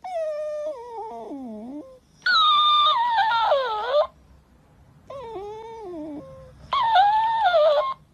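A Shiba Inu whining in four long, drawn-out moans, each sliding down in pitch; the second and fourth are the loudest.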